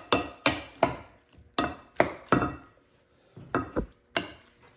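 A spoon knocking and scraping against a bowl while pasta salad is stirred and tossed with dressing: a series of irregular sharp clacks, with a short pause about halfway through.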